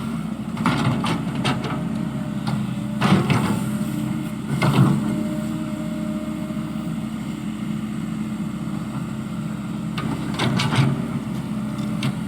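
Excavator's diesel engine running steadily, with a few short metallic clanks from the machine working, about a second in, at three and five seconds, and again near the end.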